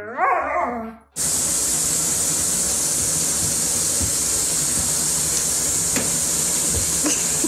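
A dog's howl rises and falls and is cut off about a second in. Then comes the steady hiss of water running from a tap into a foamy bathtub.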